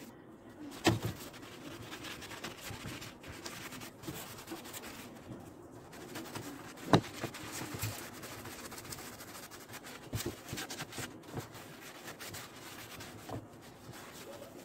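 A sponge scrubbing foamy degreaser over wooden kitchen cabinet drawers: a steady scratchy rubbing, with a couple of sharp knocks, one about a second in and a louder one about halfway through.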